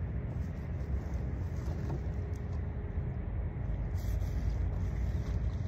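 A steady low rumble of wind on the microphone. About four seconds in, a faint splashing starts as water is poured from a plastic jug onto a stone headstone.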